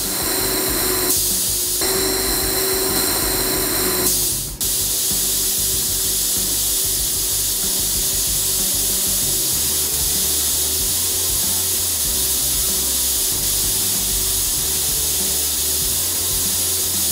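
Handheld laser welder with wire feed (LightWELD 1500) welding stainless steel pipe. A couple of short tack firings with a brief break between them, then a long unbroken weld about four and a half seconds in as the pipe turns on the rotary axis, heard as a steady hiss.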